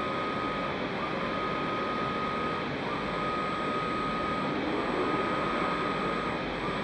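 Stretch-forming press at work forming a sheet-metal aircraft part over a die: a steady machine noise with a repeating tone, each one about one and a half seconds long, then a short break, roughly every two seconds.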